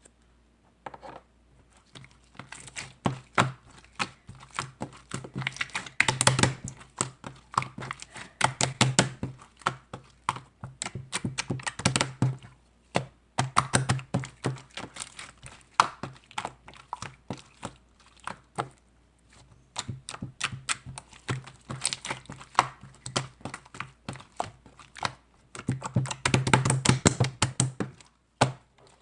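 Rapid runs of small clicks and taps in bursts with short pauses between them, like fast typing; the densest, loudest run comes near the end.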